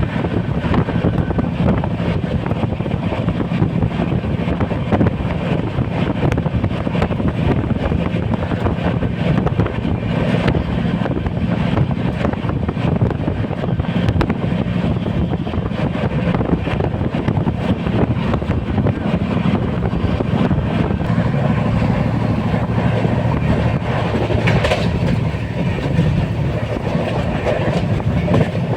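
Moving passenger train heard from inside a carriage: a steady rumble with the clatter of wheels on the rails.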